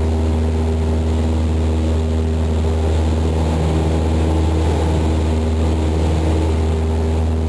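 Steady drone of a single-engine high-wing light aircraft's engine and propeller in level flight, heard inside the cabin: a deep hum with a few steady higher tones above it.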